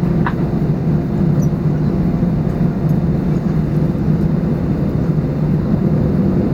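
Steady low rumble inside the cabin of an Airbus A320neo on the ground just after landing: the engines running at low power.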